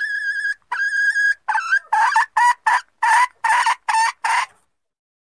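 Junglefowl hen calling: a held pitched note, a second held note, then a run of about nine short clucks that stops near the end. This hen call is used to lure wild junglefowl cocks out of cover.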